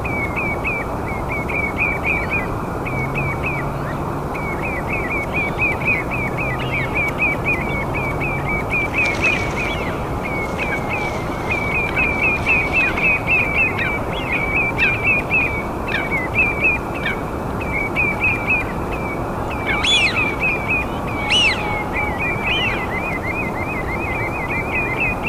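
A bird singing a long run of quick, high, repeated chirps, several a second, over a steady hiss, with two louder, sharper calls near the end.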